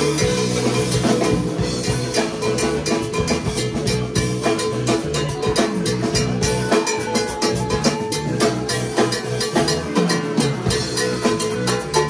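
Live band playing a groove: rapid strikes on timbales and drums over a deep, stepping bass line, with electric guitar and keyboards holding a steady tone. A note slides up and then back down about six to nine seconds in.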